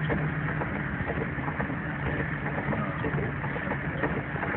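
Vehicle engine running steadily with rain and the wash of tyres through standing floodwater, heard from inside the cab while driving slowly.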